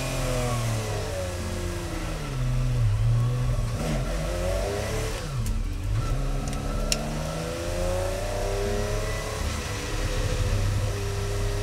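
1968 Porsche 911 race car's air-cooled flat-six revving as it pulls away after a pit stop and accelerates down the pit lane, heard from inside the cabin. The revs drop and climb again several times as the driver shifts up through the gears.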